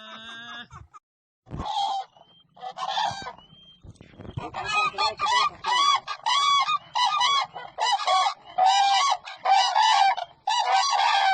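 Cranes calling: a couple of separate calls, then from about four seconds in a steady run of short, repeated honking calls at about two a second.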